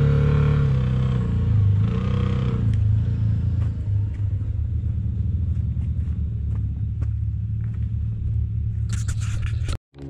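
Side-by-side UTV engine running as the machine comes down a dirt trail, its note fading after about two seconds into a low rumble. Tyres click and scrape over dirt and stones, with a burst of scraping clatter near the end before the sound cuts off suddenly.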